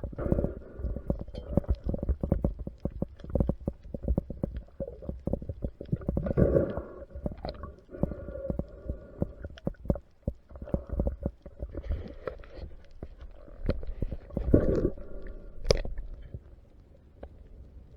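Muffled underwater sound through a camera housing during a spearfishing dive: a low rumble of water moving with many small clicks and knocks, swelling twice, about six and fifteen seconds in.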